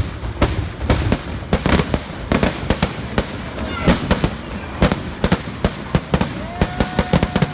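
Festival firecrackers going off in a dense, irregular barrage of sharp bangs, several a second.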